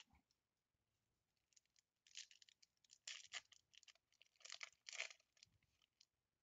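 Foil wrapper of a 2020 Bowman baseball card pack being torn open and crinkled, in several short, faint crackling bursts. The strongest bursts come about three and five seconds in.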